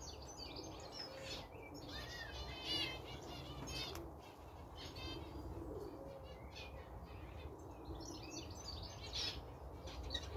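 Faint chirping of small birds throughout, with soft low cooing from Birmingham Roller pigeons underneath.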